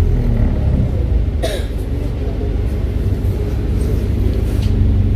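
Diesel engine of an ADL Enviro 400 double-decker bus, a hybrid converted to diesel drive, running steadily with a deep low hum. A single sharp click comes about a second and a half in.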